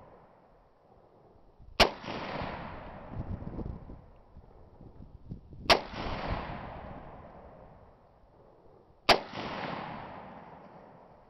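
Three rifle shots from an M1 Garand firing .30-06, spaced about three to four seconds apart, each a sharp crack followed by an echo that dies away over a couple of seconds.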